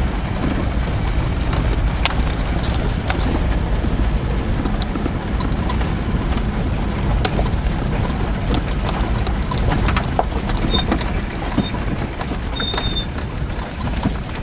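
A 4x4 driving over a rocky dirt track, heard from inside the cab: a steady engine and tyre rumble with frequent knocks and rattles as the wheels go over stones, and a couple of short squeaks near the end.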